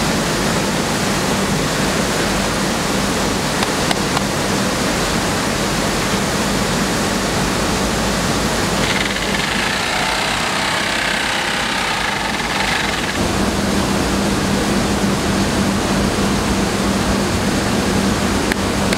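Rice mill machinery running: a steady, dense rushing noise with a constant low hum. About halfway through, for some four seconds, the hum drops out and a brighter, higher rushing sound takes over, then the hum returns.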